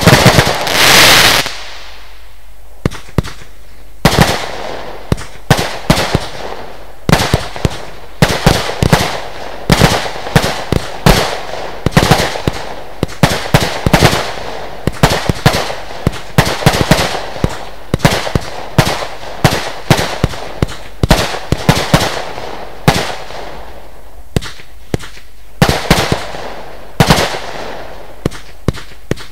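Lesli Dezemberfest 512-shot, 20 mm fireworks battery firing: a rapid run of sharp shots and bursts, two or three a second. It opens with a second or so of loud continuous bursting and thins out briefly about 24 seconds in before a denser volley.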